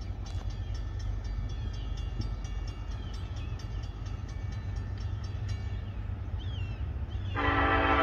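A steady low rumble with a few faint high chirps. Near the end, a locomotive air horn begins a loud, sustained multi-note chord: the horn of the approaching train's lead EMD SD70ACe.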